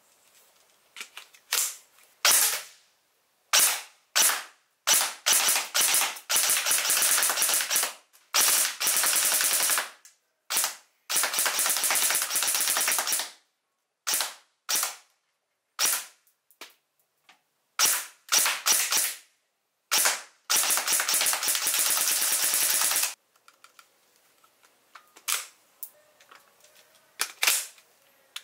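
Battery-powered electric airsoft gun (AEG) firing: single shots mixed with several rapid full-auto bursts lasting one to three seconds each, then a few quieter single shots near the end.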